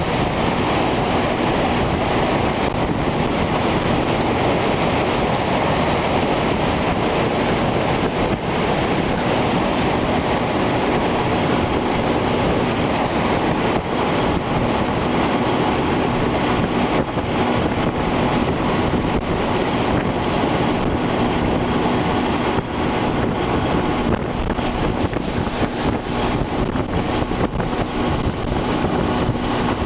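Loud, steady roar of a tornado's winds, rushing noise with wind buffeting the microphone.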